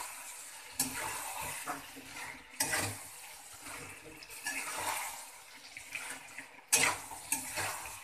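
A spatula stirring and scraping chicken liver pieces around a metal kadhai as they fry in ginger-garlic paste, with a low sizzle under it. Sharp scrapes come about a second in, again near three seconds, and loudest near seven seconds.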